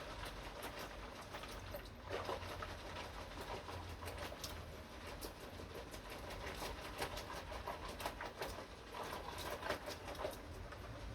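Dishwashing by hand: dishes and utensils clinking and knocking against each other, with scrubbing over a steady wash of noise.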